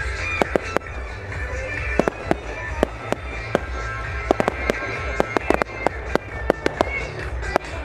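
Fireworks going off in a rapid, uneven run of sharp bangs and pops, with small shells and rising comets bursting low overhead. Music with a steady bass plays underneath.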